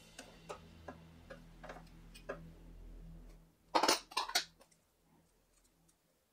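Light metallic ticks, a few to the second, as an open-end wrench works the brass OPV valve fitting of a Gaggia Classic Pro espresso machine. About four seconds in comes a short, loud clatter of metal on metal, then it goes quiet.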